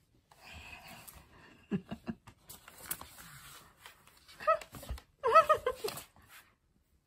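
A house cat meowing in short, wavering calls about four and a half seconds in and again just after five seconds, the later ones loudest. Before that there is rustling and a few sharp knocks.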